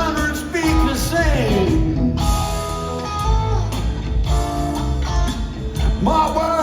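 Live rock trio playing: electric guitar, bass guitar and drum kit, recorded from the audience on a phone. A guitar line slides down in pitch about a second in.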